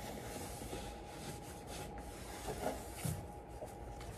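Blue shop towel rubbing and wiping along the underside of a plastic car bumper lip, a faint uneven scuffing with a few soft knocks.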